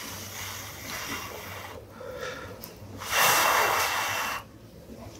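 A man's breath, close to the microphone: a soft rush of air, then a louder breath about three seconds in that lasts just over a second.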